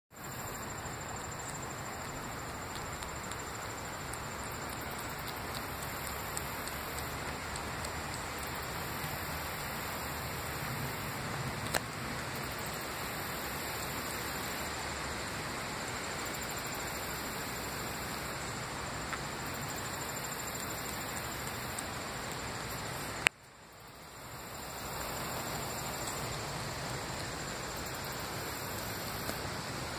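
Steady, even rushing background noise with two sharp clicks, the louder one about three-quarters of the way through, after which the noise drops away suddenly and swells back over a couple of seconds.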